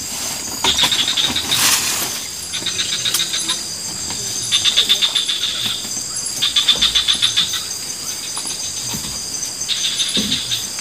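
Night-time rainforest insect chorus: a steady high-pitched buzz, with about five bouts of rapid pulsed trilling, each lasting about a second. A short hiss comes about two seconds in.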